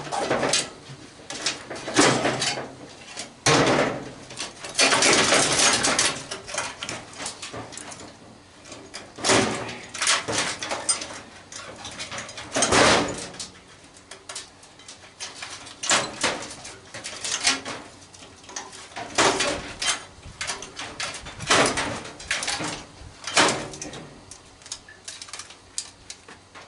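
Sheet metal and parts of an old microwave clattering and scraping as it is taken apart by hand, in irregular knocks with a longer scraping rattle about five seconds in.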